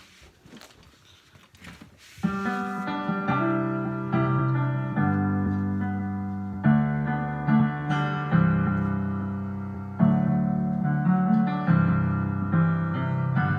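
A karaoke backing track's piano intro, slow sustained chords with a new chord struck every second or two. It begins about two seconds in, after a short near-quiet stretch with a few faint clicks.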